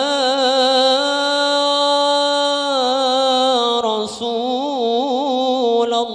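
A single voice chants Arabic in a slow, highly ornamented melody. One syllable is drawn out over long held and wavering notes, with a short breath about four seconds in and another near the end.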